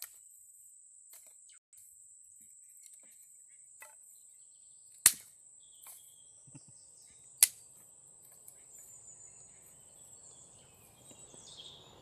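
Dry sticks and grass handled while a campfire lay is built: faint crackles and clicks, with two sharp wooden cracks about two and a half seconds apart, over a steady high-pitched insect drone.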